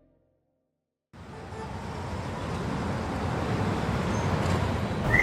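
Dead silence for about a second, then a steady background rushing noise fades in and slowly grows louder.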